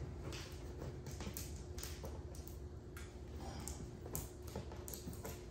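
Faint, scattered taps and clicks of a box and its contents being handled, over a steady faint hum.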